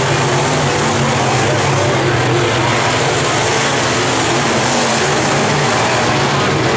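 Engines of dirt-track modified race cars running together in a loud, steady drone, without sharp revving.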